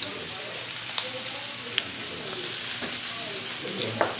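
Meat and shiitake mushrooms sizzling on a tabletop grill: a steady hiss, with a few light clicks.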